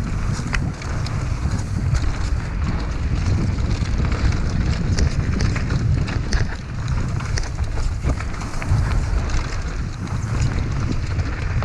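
Wind buffeting the action camera's microphone as a mountain bike descends a dirt singletrack at speed, with tyre noise on the dirt and frequent small clicks and rattles from the bike over rough ground.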